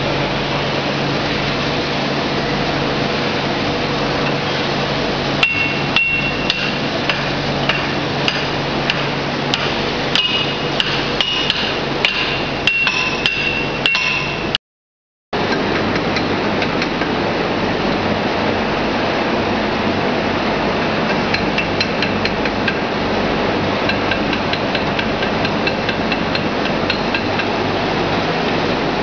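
Small screw oil press (expeller) running with a steady mechanical din and a low hum, with sharp metallic clicks and knocks coming thick and irregular for several seconds in the first half. About halfway through, the sound cuts out completely for under a second, then the steady running carries on with fewer clicks.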